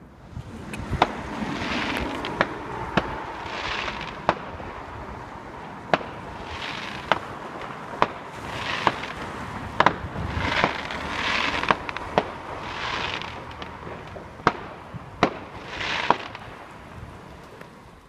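Fireworks going off: about fifteen sharp bangs a second or so apart, with longer hissing swells of noise between them.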